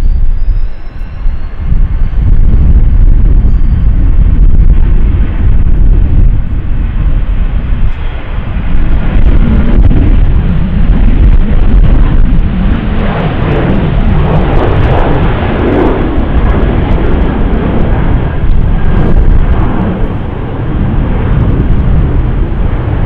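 Boeing 737-800's twin CFM56-7B jet engines at takeoff thrust. A rising whine as they spool up at the start gives way to a loud, rough roar through the takeoff roll, which grows fuller from about 9 seconds in as the jet lifts off and climbs away.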